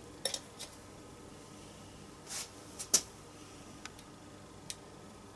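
A craft knife picking at the backing of self-adhesive tape on clear plastic window strips: a few faint clicks and one short scratch, the sharpest click about three seconds in.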